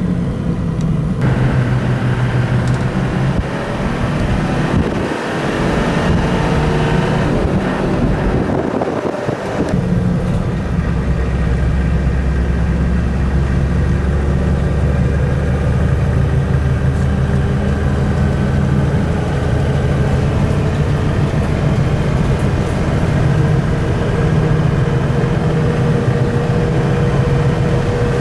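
Car driving with its engine running and road noise. The engine pitch climbs for a few seconds about a third of the way in, changes abruptly, then holds steady.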